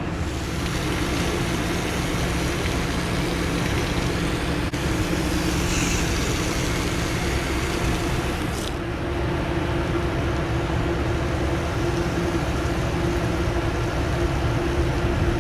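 Steady hum of running air-conditioning and refrigeration condensing units, with a brief hiss about six seconds in.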